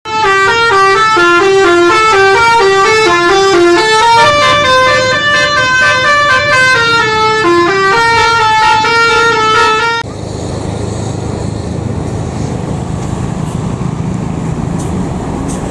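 Telolet basuri bus horn playing a fast tune of stepped notes for about ten seconds, cut off abruptly. Then steady engine and road noise.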